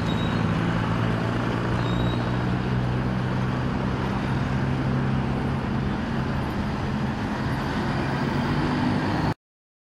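City road traffic: cars and a bus driving past, over the steady low hum of a large engine. The sound cuts out completely for a moment near the end.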